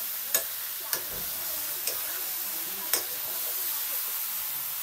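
Pork pieces sizzling in a black wok as they are stirred with a metal spatula, which clicks sharply against the pan four times.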